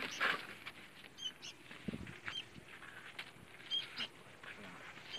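Handling noise from a new floating seal for an excavator final drive: a plastic bag rustling as the steel seal ring is taken out, then scattered light knocks and clicks as it is carried and handled. A few short high chirps sound at intervals.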